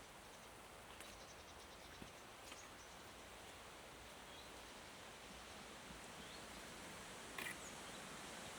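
Quiet forest ambience: a faint, even hiss with a few faint bird chirps and a handful of light clicks or taps, the clearest one near the end.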